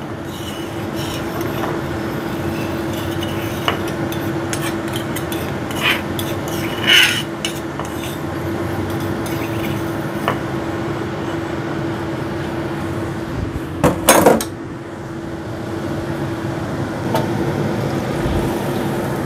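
A spoon scraping and clinking against cookware as ground spice paste is scraped out of the mortar, with scattered short clinks and a pair of louder knocks near the middle, over a steady hum and hiss.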